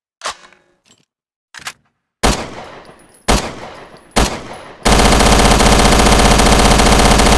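Thompson submachine gun sound effect: a few light clicks, then three single shots about a second apart, each with an echoing tail, then sustained rapid automatic fire from about five seconds in.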